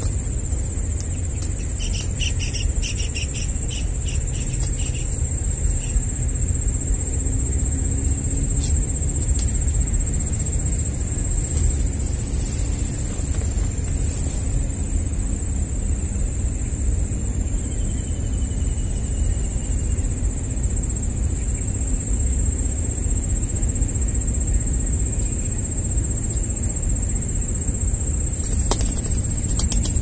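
An insect, cricket-like, keeps up one steady high-pitched note over a low rumble, with a few faint clicks about two to five seconds in and again near the end.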